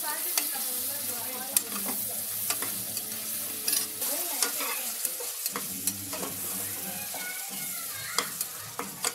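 Tomatoes and onions sizzling in hot oil in a pressure-cooker pot while a perforated metal skimmer stirs them. The spoon scrapes and clicks sharply against the pot at irregular moments.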